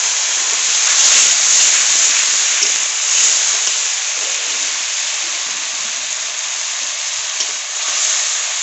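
Tomato purée sizzling in hot mustard oil and ginger paste in a kadai as it is stirred with a metal spatula: a loud, steady hiss that eases slightly after about three seconds.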